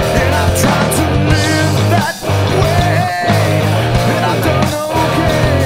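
Rock music: a full band with electric guitar and a steady bass line.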